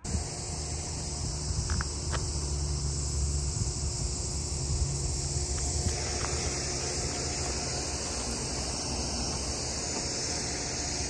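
A steady, unbroken high insect chorus over a low rumble.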